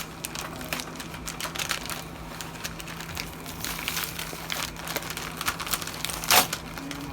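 Packaging being handled and crinkled during an unboxing, a run of irregular crackles with one louder rustle about six seconds in.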